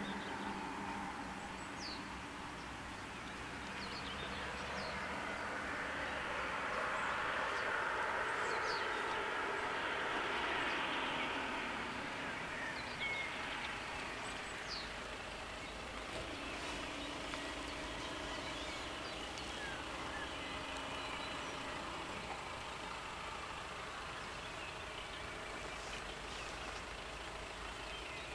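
Outdoor traffic noise with a passing vehicle's tyre noise swelling and fading about a third of the way through, and birds chirping throughout. Later a low steady hum holds for several seconds.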